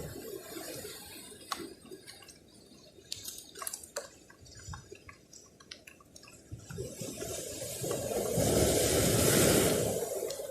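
Sea water trickling and dripping among shore rocks with scattered small clicks, then a wave surging in about seven seconds in and washing over the rocks, loudest just before the end.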